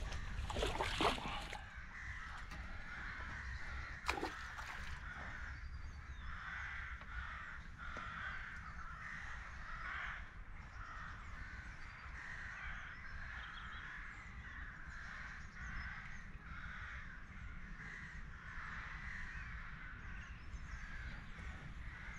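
A flock of corvids cawing continuously in the background over a steady low rumble, with a few sharp knocks in the first few seconds.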